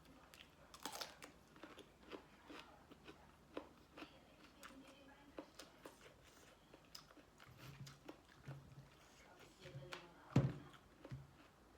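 A person chewing and biting into shrimp and squid papaya salad, with scattered small crunches and clicks and one louder knock about ten seconds in.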